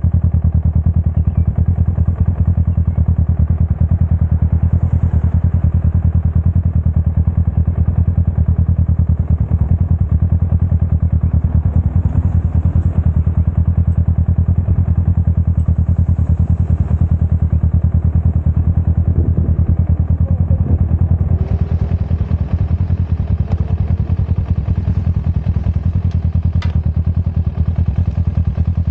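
Sport motorcycle engine idling steadily, heard close up from a camera mounted on the bike.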